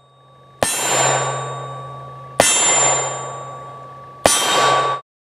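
Three shots from a Colt Bisley single-action revolver in .38 Special, about two seconds apart. Each shot sets a steel target ringing in a long, fading clang, and the last ring cuts off abruptly.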